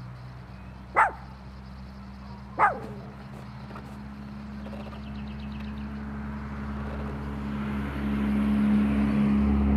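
Small long-haired dog giving two short, sharp barks about a second and a half apart, each falling in pitch. Under them a steady low motor hum grows louder through the second half.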